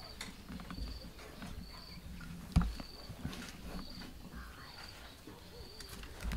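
An insect chirping in short high trills about once a second, with knocks and rustles close to the microphone as a baby vervet monkey grabs at the camera; the loudest knock comes about two and a half seconds in.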